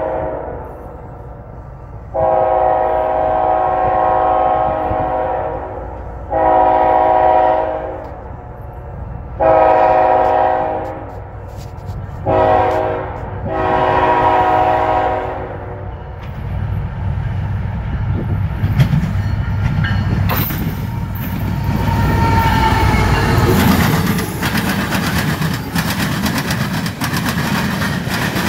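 CSX freight locomotive's multi-chime air horn blowing a series of long blasts as the train approaches. From about 16 s the locomotives and cars rumble past loudly, with sharp clicks as the wheels cross the diamond.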